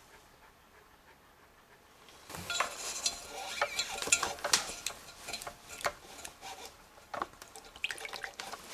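Irregular clinking, knocking and scraping of potter's tools and clay being worked at a potter's wheel, starting about two seconds in.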